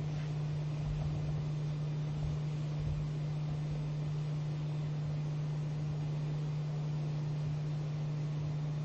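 Steady low hum over a faint even hiss: room tone, with no other sound.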